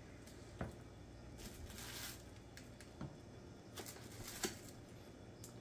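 Faint handling noises of raw wild boar chops being lifted off a plastic-wrapped sheet pan and laid into a plastic tub of brine: rustling, with a few light knocks, the loudest near the end.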